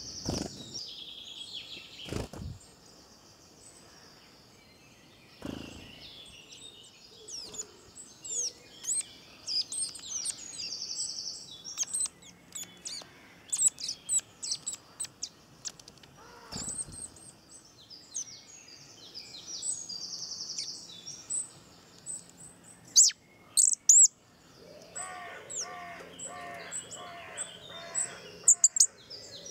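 Garden birdsong: several wild birds chirping and singing in short, high-pitched overlapping calls. A few loud, sharp clicks come near the end, and a lower call repeats evenly over the last few seconds.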